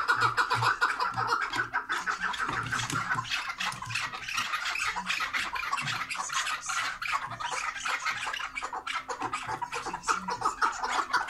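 Caged chukar partridges calling: fast, rhythmic runs of chuck notes that go on without a break, loudest at the start and again near the end.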